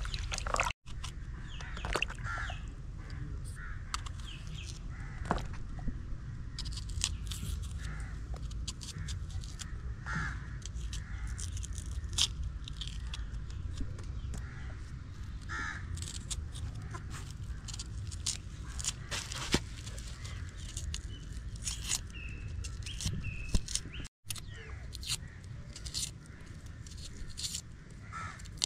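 Outdoor ambience of short, harsh bird calls repeating at irregular intervals, with scattered sharp clicks and knocks over a steady low rumble. The sound drops out for an instant twice.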